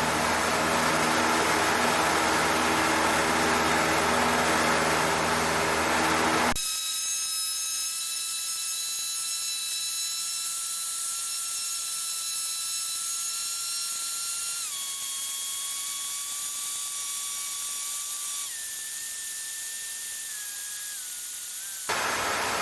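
Cessna 152's engine at full climb power in the cockpit, a steady roar with low droning tones. After about six seconds the roar cuts out abruptly, leaving a high steady whine with overtones that drops in pitch in two steps and then glides lower. Near the end the cockpit roar comes back.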